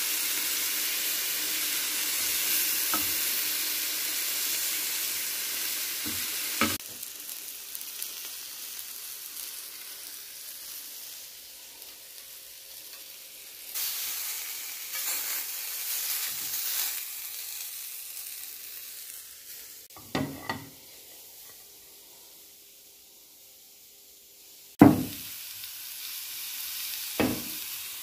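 Marinated chicken skewers sizzling in a hot ridged grill pan: a steady frying hiss that is loudest for the first several seconds, then drops to a quieter sizzle. A few sharp knocks come in the second half, the loudest about three seconds before the end.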